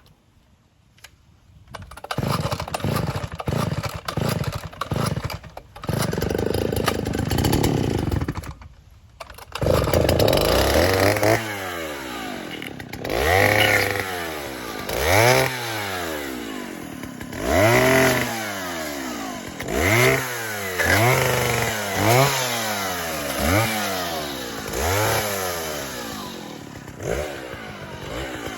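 Gasoline chainsaw starting about two seconds in and running unevenly with a couple of brief cut-outs, then from about ten seconds revving up and down over and over as it cuts a notch into a wooden fence post. Its chain is dull, so the saw struggles through the cut.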